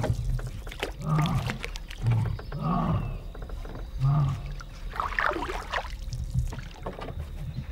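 Lion roaring: a series of deep grunts roughly a second apart that die away about four seconds in.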